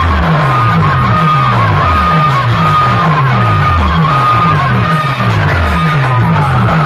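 Loud DJ dance music from a large stacked speaker system: a deep bass note that slides downward, repeated about twice a second, under a high held synth tone.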